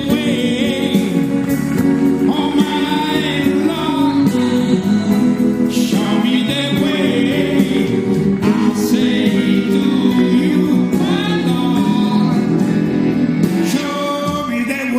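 Music: a song with singing voices over a steady instrumental backing.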